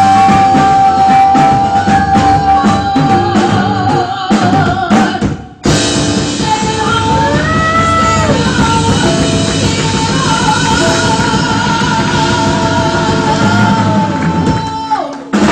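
Live jazz combo playing: vocalist, upright bass, keyboard and drum kit. The singer holds long notes with vibrato over the band, the music breaks off briefly about five and a half seconds in, and a final held note falls away near the end.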